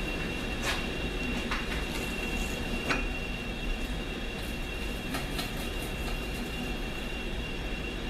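1942 South Bend metal lathe running and turning a steel AR-15 bull barrel, with a steady high whine over a low hum and scattered light ticks. It is a pass that takes the barrel's end down toward half an inch before threading.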